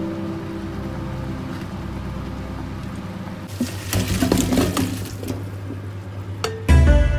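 Hot water and boiled chicken wings poured from a pot into a stainless steel mesh colander in a sink: a splashing rush of water for about two seconds, starting about halfway through.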